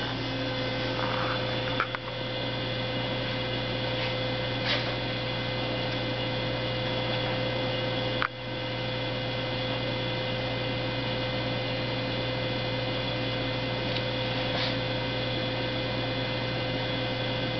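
Steady hum of the hydraulic loading rig, a constant low drone with several higher steady tones, while the actuators slowly ramp up load on the steel tube, still at a low load. Two short clicks sound, about two seconds in and again about eight seconds in.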